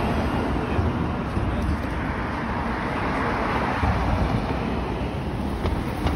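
Metro train running: a steady rumble and rushing noise, swelling slightly in the middle.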